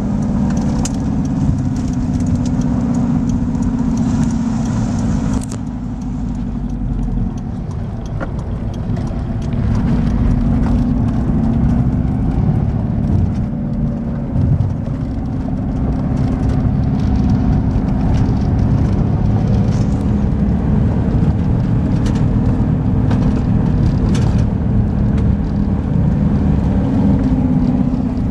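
Mitsubishi Pajero's 2.5-litre 4D56 turbo-diesel engine driven hard in low-range four-wheel drive, heard from inside the cab, with tyre rumble and stone clicks from the gravel road. The engine eases off about five seconds in, then climbs back and holds a steady high-revving note near the top speed of low range.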